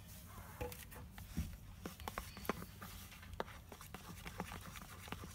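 Glue slime with activator being stirred and worked: irregular short sticky clicks and taps, a few a second, over a steady low hum.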